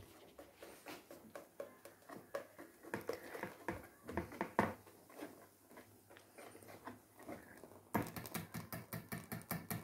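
Faint, irregular clicking and tapping as cake batter is poured from one bowl into another, becoming a quicker run of small clicks about eight seconds in.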